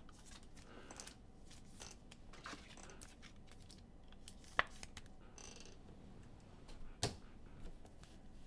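Faint rustling and light clicks of trading cards being handled and flipped through by hand, with two sharper clicks about four and a half and seven seconds in.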